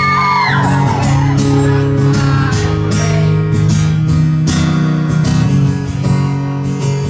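Acoustic guitar strummed in a steady rhythm, played live. A voice cries out briefly at the start.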